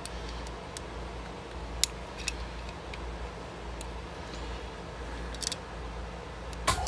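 Scattered light clicks and taps of an Allen wrench turning the screw of a pistol magazine extension's locking piece, a half turn at a time, over a steady low hum.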